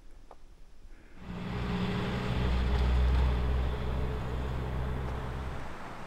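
A motor vehicle's engine hum with road hiss over it. It comes in about a second in, is loudest midway and dies away near the end, like a vehicle passing.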